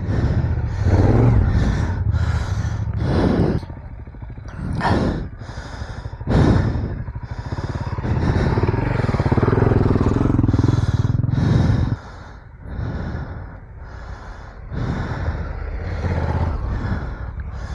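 Adventure motorcycle engine running at low revs, rising and falling with the throttle over rough off-road ground. Repeated bursts of heavy breathing come close to the microphone about every second or two.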